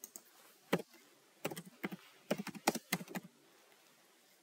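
Typing on a computer keyboard. A couple of single keystrokes come first, then a quicker run of keys from about one and a half to three seconds in.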